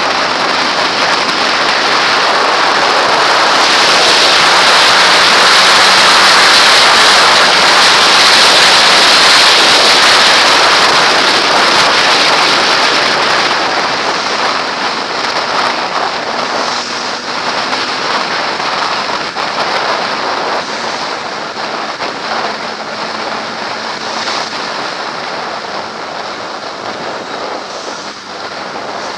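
Wind rushing over a helmet-mounted camera on a Kawasaki ZX-6R at motorway speed, with the bike's engine faint beneath. The rush is loudest in the first half and eases off after about halfway, as the bike slows into traffic.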